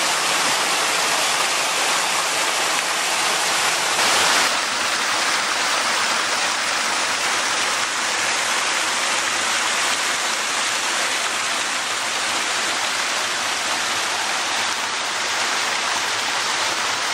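A mountain stream rushing over a chain of small waterfalls: a steady, loud rush of water.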